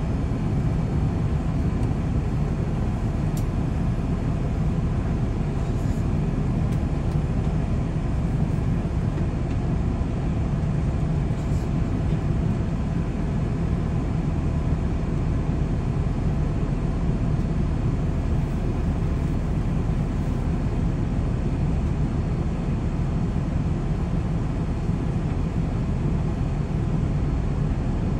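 Boeing 787-9 passenger cabin in flight: a steady drone of engine and airflow noise, heaviest in the low rumble, with faint steady tones above it.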